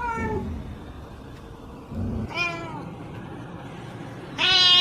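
A cat meowing three times, about two seconds apart, the last meow the loudest.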